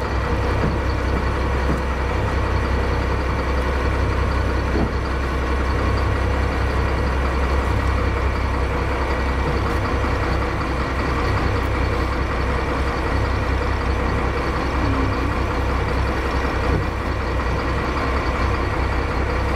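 Crabbing boat's engine running steadily at idle, a deep, even drone while the boat creeps along the trotline.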